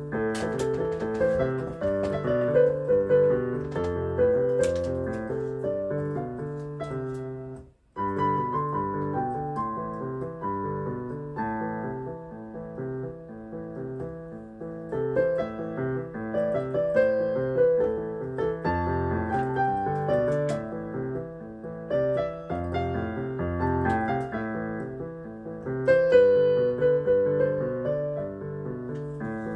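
Yamaha PSR-E463 portable keyboard played with both hands: a higher melody over low chords, breaking off for a moment about eight seconds in.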